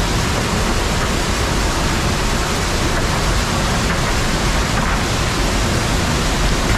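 Rushing water of a stream pouring down a small cascade: a loud, steady hiss.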